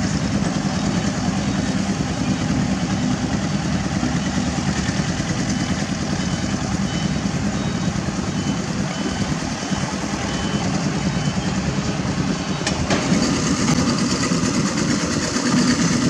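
Heavy diesel engines running steadily at a construction site. A high beep repeats about once a second for a few seconds in the middle, and there is one sharp click near the end.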